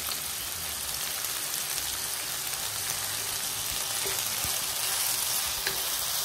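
Potato and soya chunk masala filling sizzling steadily in a nonstick pan while it is stirred with a wooden spatula.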